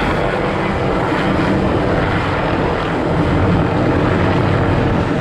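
Aircraft passing overhead: a steady, loud engine drone.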